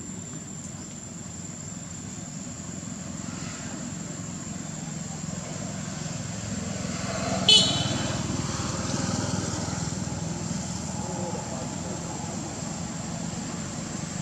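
Motor vehicle traffic running steadily, swelling about halfway through, with one short, sharp, high-pitched toot about halfway in, the loudest sound.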